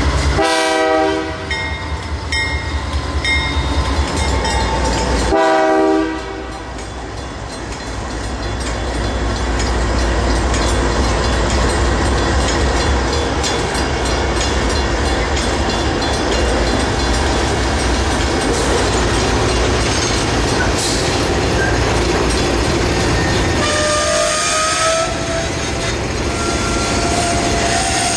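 Canadian Pacific GE AC44CW diesel locomotives sound two horn blasts, one about a second in and a shorter one about five seconds in. The diesel engines and wheels then run steadily past at close range, with a brief wheel squeal near the end.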